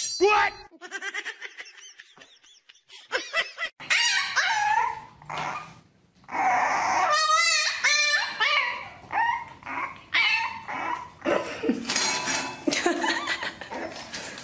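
A dog yipping, whining and barking in a string of short calls with bending pitch, starting about four seconds in.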